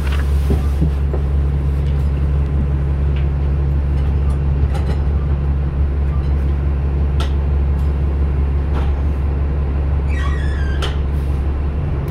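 City transit bus engine running with a steady low drone, heard from inside the passenger cabin, with scattered clicks and rattles. A brief wavering high squeal comes about ten seconds in.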